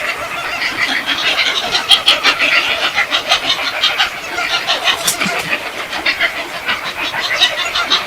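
A roosting flock of large birds calling noisily, many short harsh calls overlapping into a continuous chatter.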